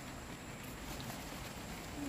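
Steady, faint outdoor background noise with a high thin hum and a few light ticks; no distinct sound event.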